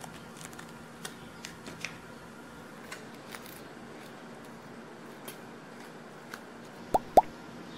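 Faint clicks and light scrapes of a spoon spreading sandwich spread on slices of white toast, with two sharp taps in quick succession about seven seconds in, over a faint steady hum.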